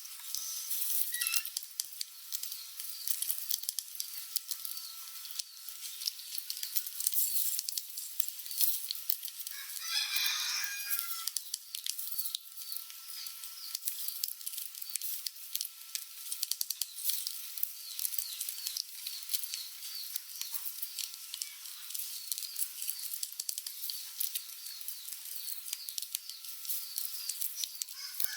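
Rats squeaking over a dense run of clicks and scratches, with one louder, longer squeal about ten seconds in.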